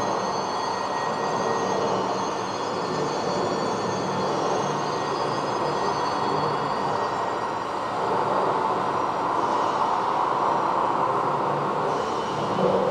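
Steady rumbling, rushing noise that swells slightly partway through, with faint high steady tones above it.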